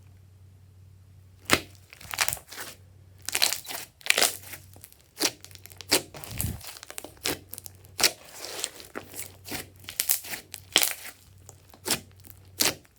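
Hands squishing and stretching glossy slime, giving irregular sticky crackles and pops, some sharp and loud.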